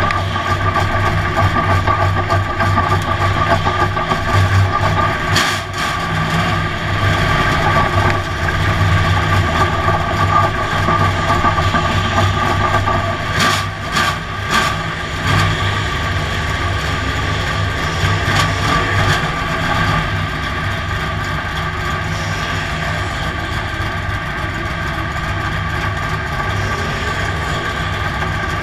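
Race car engine idling and running at low speed, heard from inside the cockpit as a steady low rumble. There are a few brief knocks about five seconds in and again around fourteen seconds in.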